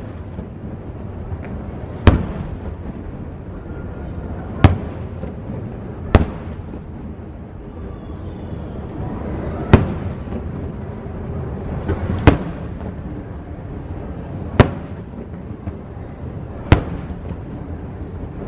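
Aerial fireworks shells bursting: seven sharp bangs two to three seconds apart, some followed by a faint crackling hiss.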